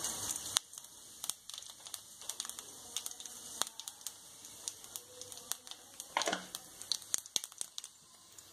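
Cumin seeds crackling in hot oil in a kadhai: scattered sharp pops and ticks at irregular intervals over a faint sizzle, as the seeds temper.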